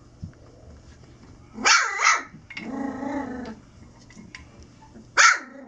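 Golden retriever puppies playing and vocalising: two sharp barks about two seconds in, then a drawn-out growl lasting about a second, and one more sharp bark near the end.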